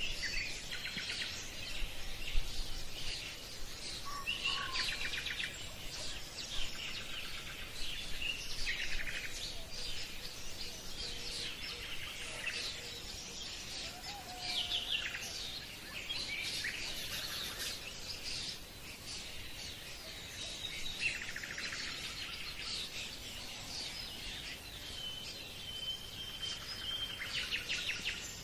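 Birds singing: bursts of quick chirps and trills every couple of seconds over a faint steady background hiss, with one held whistle-like note near the end.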